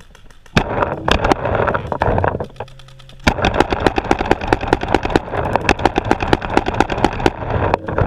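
Paintball markers firing in rapid strings of sharp pops, about ten shots a second from roughly three seconds in, after an earlier dense burst and a short lull.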